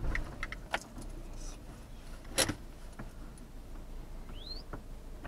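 Keys and charms hanging from a car's rear-view mirror clinking in a few light clicks, the loudest about halfway through, over a faint low hum of the car. A short rising whistle sounds near the end.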